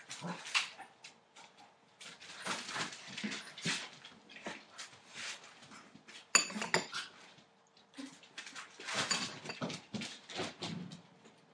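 Entlebucher Mountain Dog puppies scampering and scuffling on a newspaper-covered floor, in irregular bursts of rustling, with a sharp clatter of stainless steel food bowls about six seconds in.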